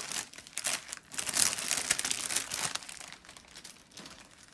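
Small plastic zip-lock bags of diamond-painting crystals crinkling as they are handled and shuffled by hand, in irregular rustles that are loudest over the first three seconds and then die down.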